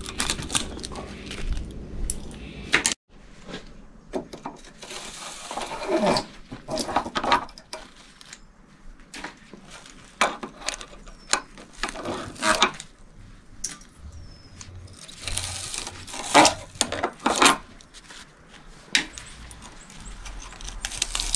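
Pliers gripping and pulling copper windings out of a steel electric motor stator clamped in a vise: irregular metal clinks and knocks, with a few longer scraping pulls. The sound drops out abruptly for a moment about three seconds in.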